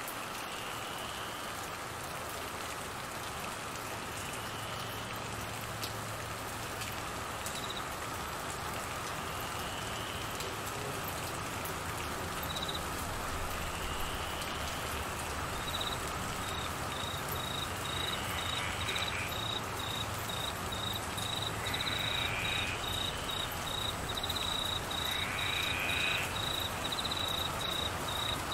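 Steady heavy rain falling on trees and grass. From about halfway in, a cricket chirps in quick regular pulses, about two a second. A short rising call repeats every four seconds or so.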